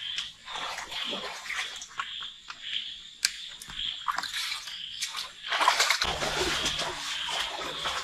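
A pulsing chorus of calling frogs, repeating a little faster than once a second, under irregular splashing and knocking sounds that are loudest from about five and a half to seven seconds in.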